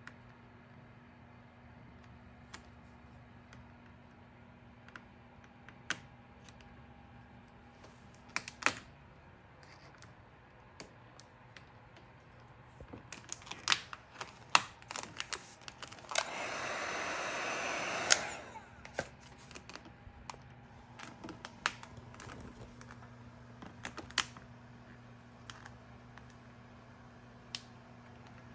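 Vinyl wrap film crackling and clicking as fingers press and lift it around a car's grille trim, with a heat gun blowing for about two seconds just past the middle.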